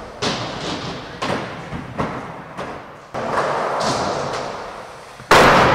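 Skateboard wheels rolling on wooden ramps, with several hard thuds of the board hitting the wood and a loud crash near the end.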